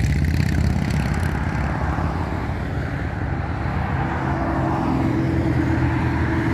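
Motorcycles riding past in a steady stream, their engines running at a steady pitch; a further engine tone comes in about four seconds in as another bike approaches.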